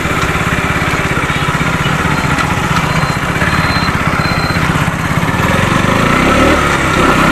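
Motorcycle engine running steadily while the bike is ridden, getting a little louder about six seconds in.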